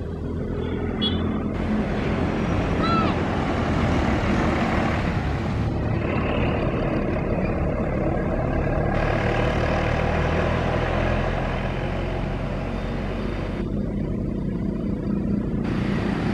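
Large bus engine running close by with road and tyre noise, building about a second in and then holding steady.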